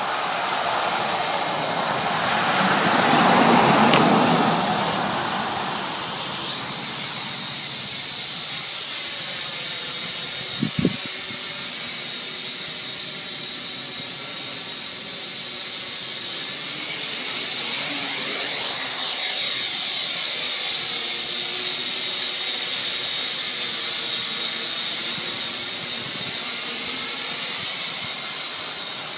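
Blade mQx micro quadcopter's small electric motors and propellers whining steadily at a high pitch. The whine steps up about six seconds in as the quad throttles up and lifts off, then holds while it hovers. A rushing noise swells and fades in the first few seconds, and there is a single sharp tap near the middle.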